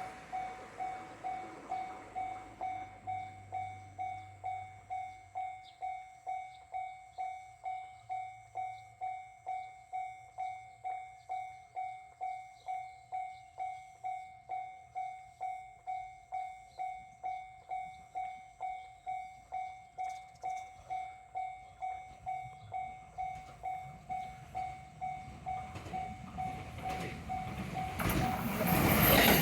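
Japanese level-crossing warning bell ringing steadily, about two strokes a second. Train noise builds underneath from a little past two-thirds in and turns loud in the last second or so as the train arrives at the crossing.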